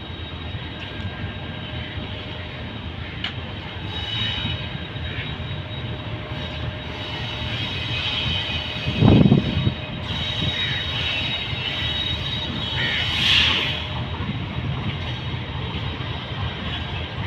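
Diesel-electric locomotive (Pakistan Railways GEU-40) running with a steady low drone as it approaches with its train. There is a single loud low thump about halfway through, and a short higher-pitched hiss a few seconds later.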